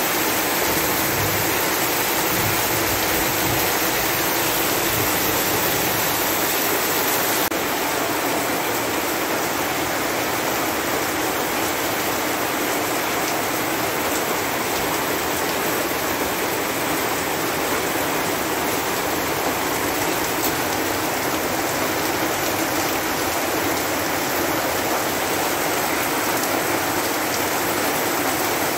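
Heavy rain pouring steadily, a dense even hiss with no pauses; the highest part of the hiss dims slightly about seven seconds in.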